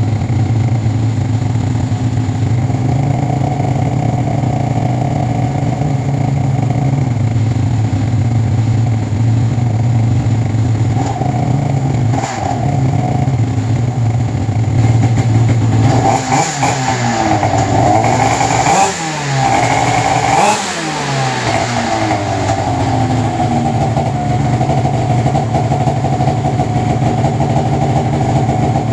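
2002 Arctic Cat ZR 800's freshly rebuilt two-stroke twin idling on a stand during an on-stand break-in heat cycle. Around the middle it is blipped about three times, the revs rising and falling quickly, before it settles back to a steady idle.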